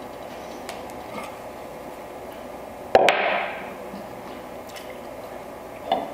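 A chisel struck with a mallet, chopping the waste out of a dovetail socket: one sharp, loud blow about three seconds in and a lighter one near the end, over a steady low background noise.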